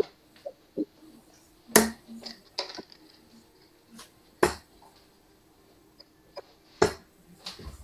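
Three darts striking a Winmau bristle dartboard one after another, each a sharp thud, about two and a half seconds apart, with a few fainter clicks between them.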